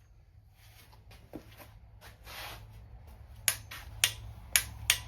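Click-type torque wrench clicking four times, about half a second apart, as it breaks over at its set torque on a small-block Chevy intake manifold bolt.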